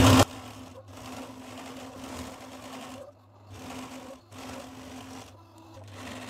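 Sewing machine stitching a folded denim strap, running steadily with a hum and stopping briefly several times as the fabric is guided. A short loud burst comes right at the start.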